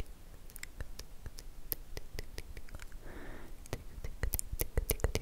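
A fluffy brush stroked over the microphone: irregular crackling clicks and scratches, thickening in the second half, with a short soft swish about three seconds in.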